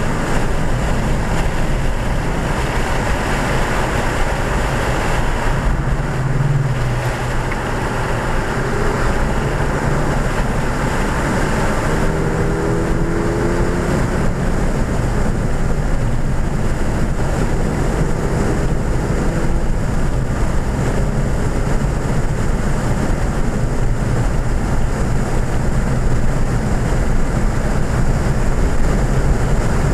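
2014 Ford Fiesta ST with its 1.6-litre turbocharged four-cylinder running hard at track speed, heard from inside the cabin: steady engine, tyre and wind noise, with the engine note shifting in pitch now and then.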